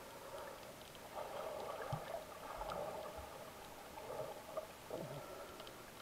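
Muffled underwater sound picked up by a camera held below the surface: water swishing and gurgling in slow swells, with a few faint scattered clicks.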